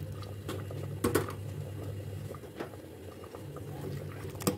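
Rajma curry bubbling in an aluminium pressure cooker while a steel ladle stirs it. The ladle knocks sharply against the pot about three times, loudest about a second in. A steady low hum runs underneath.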